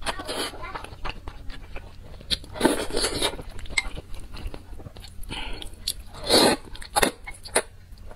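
Close-miked eating of spicy seafood noodle soup: chewing and biting, with many small mouth clicks and a few louder slurps about two and a half seconds in and again past six seconds.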